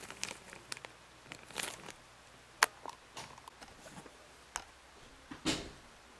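Handling noise: scattered clicks and brief rustles of a small clear plastic bag being handled, with one sharp click about two and a half seconds in. Near the end comes a louder, longer rustle with a low thump, as the handheld camera is moved.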